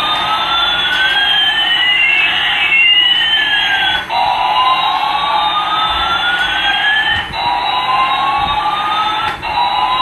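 Battery-operated light-up toy airplane's electronic sound effect: siren-like wailing tones slide up and down against each other. The pattern cuts off and restarts about every two to three seconds.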